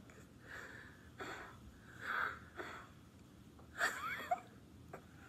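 A toddler blowing at birthday candles: several short, breathy puffs, with a brief squeaky gliding sound about four seconds in.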